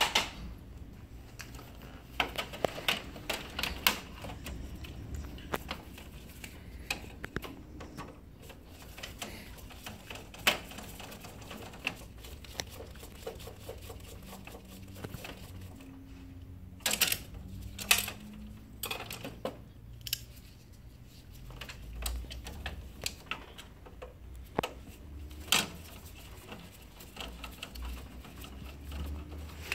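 Scattered plastic clicks and knocks from gloved hands and a screwdriver working parts loose inside an HP LaserJet M712/M725 printer's fuser bay, with a quick run of sharper clicks a little past halfway.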